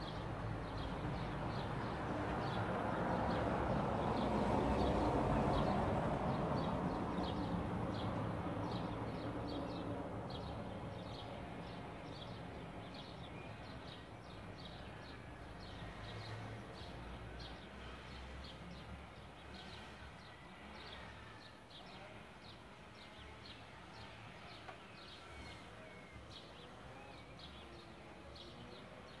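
Outdoor ambience: a broad rushing noise swells to a peak about five seconds in and fades away, while a short high chirp repeats about twice a second throughout, with a few faint calls later on.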